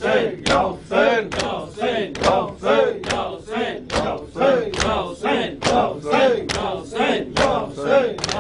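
A group of men chanting a Shia noha lament in unison, with their hands striking their chests in matam on a steady beat of about two strikes a second.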